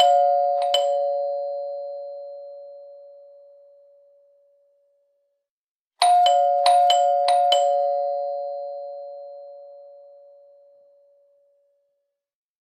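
Two-tone doorbell chime: a high then low ding-dong that rings out and fades over about four seconds. About six seconds in it rings again with several quick strikes in a row, then fades slowly.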